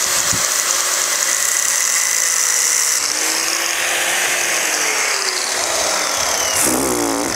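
Angle grinder running steadily, its disc grinding at the seized metal pipe fitting on a car's air-conditioning condenser to free it.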